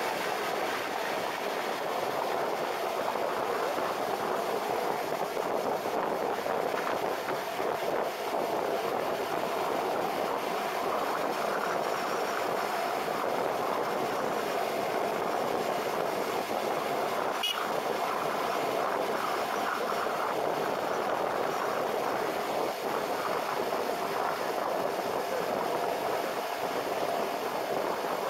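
Suzuki cruiser motorcycle riding at a steady highway speed: the engine runs evenly under a continuous rush of wind and road noise.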